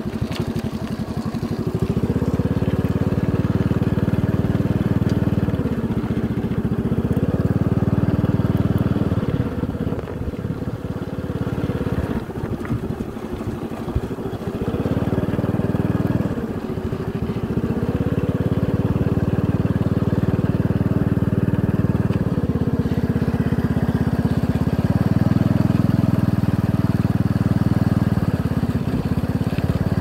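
Motorcycle engine running under way, its pitch falling and picking up again several times, with a rougher, quieter stretch about ten seconds in.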